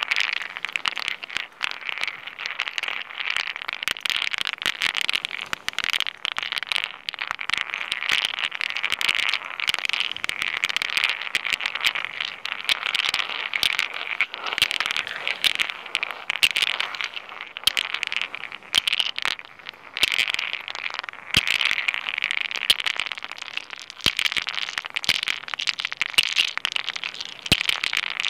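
Smooth pebbles rubbed, rolled and knocked against granite rock: a dense, continuous gritty scraping and crackling, shot through with many sharp clicks of stone on stone.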